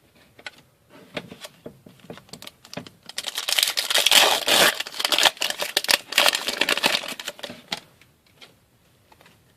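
A pack of hockey trading cards being handled and opened: a wrapper crinkling and tearing with quick clicks of cards. There are scattered clicks at first, then a dense spell from about three to eight seconds in, before it thins out again.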